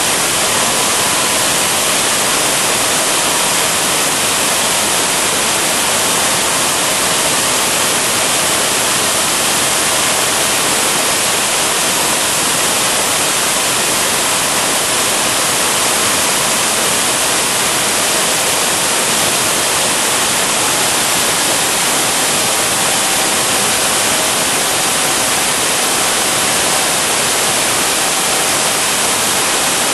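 Home-made turbojet gas turbine with a free power turbine running steadily: a loud, even rushing hiss with a faint whine under it.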